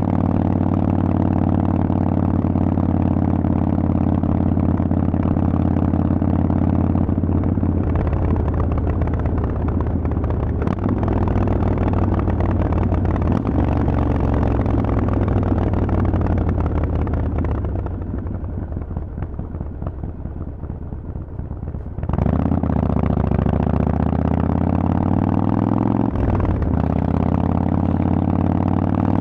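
Harley-Davidson Forty-Eight 1200XL air-cooled V-twin running through loud Vance & Hines exhaust pipes while riding. The note is steady under throttle, then falls and quietens for a few seconds as the throttle is eased off. About three quarters of the way through it picks up sharply and rises in pitch, with a brief dip at a gear change.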